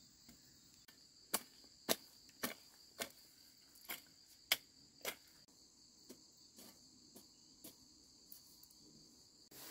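Hoe blade chopping into garden soil, a quick run of sharp strokes about two a second, then a few fainter, more spaced strokes, over a steady high chirring of insects.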